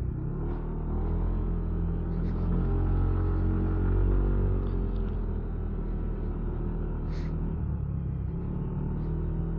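Engine of a vehicle labouring up a steep mountain road, a steady low rumble that swells about three to four seconds in and then eases.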